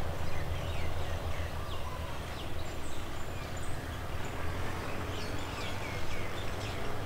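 Birds calling with many short, falling chirps over a steady low rumble.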